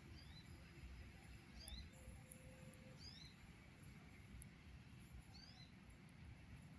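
Near silence with a faint low rumble, broken about four times by a small bird's call: a quick pair of short, high, rising chirps.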